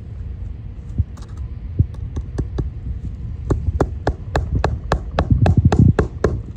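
Hammer driving roofing nails through shingles: a few light taps, then a quick steady run of blows about four a second that grows louder near the end.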